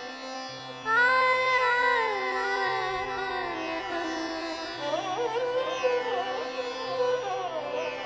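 Background score: a steady drone, with a melodic line that enters loudly about a second in and slides and bends in pitch.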